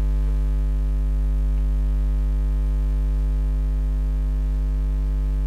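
Steady electrical mains hum with a stack of steady overtones, loud and unchanging.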